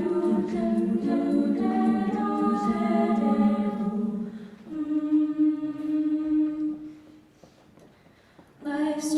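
Treble-voice a cappella group singing wordless chords, thinning to a single held note about five seconds in. The note fades into a pause of about a second and a half, and the voices come back in near the end.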